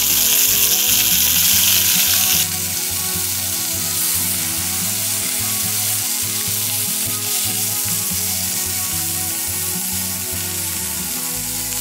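Steak pieces searing in a hot cast-iron skillet over a BioLite wood-burning camp stove: a loud, steady sizzle that drops a little in level about two and a half seconds in.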